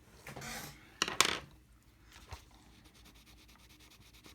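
Rubbing on sketchbook paper, twice within the first second and a half, the second louder and sharper, then a few faint ticks.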